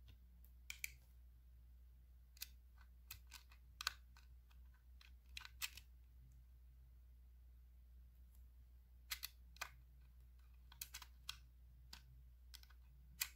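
Sparse, light clicks and taps of a plastic spatula and thin stick against a tabletop, clear slime and a plastic makeup palette as glitter makeup is scraped and mixed, some in quick pairs, over a faint low hum.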